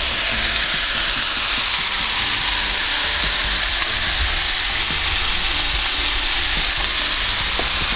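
Chicken frying in a pan, a steady sizzle.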